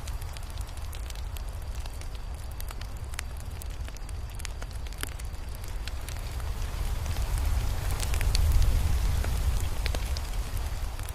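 Crackling fire: irregular pops and snaps over a steady low rumble, which swells briefly about eight seconds in.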